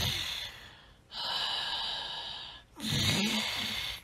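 A person snoring in sleep with slow, heavy breaths through an open mouth. A long breath fades about a second in, a hissing breath follows, and a breath with a throaty rasp comes near the end.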